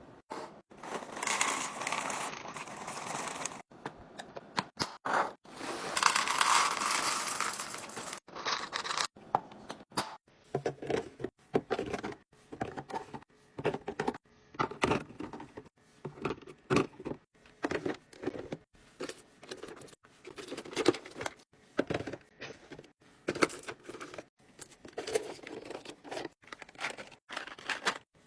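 Plastic packaging being torn open and crinkled in two longer rustling stretches, then many short clicks and taps as items are handled and set down one after another.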